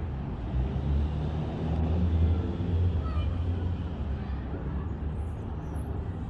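Low rumble of passing street traffic, swelling about two seconds in, with a few faint high chirps near the middle.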